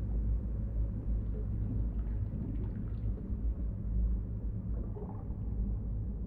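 A steady low rumble with faint, scattered small clicks over it.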